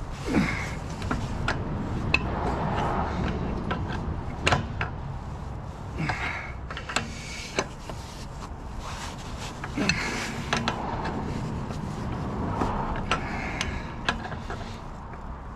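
Hand-turned thread die cutting and chasing the damaged spindle-nut threads on a drive axle, with cutting fluid on the threads. It goes in repeated strokes every few seconds: a metal scraping and grinding, short creaks and clicks as the die handle is worked round.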